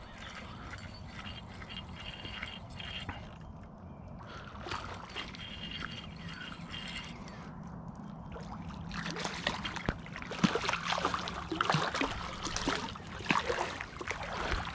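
Water splashing as a small channel catfish is reeled in, then a louder run of sharp clicks and knocks from about nine seconds in as it is landed on the rocky bank.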